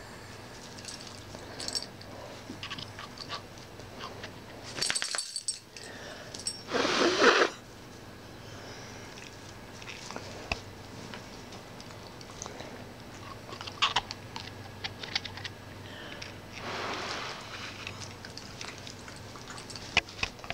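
Small dog playing at bubbles on a carpet: scattered light clicks and jingles, with two louder rushes of noise, the loudest about 7 s in and a weaker one around 17 s.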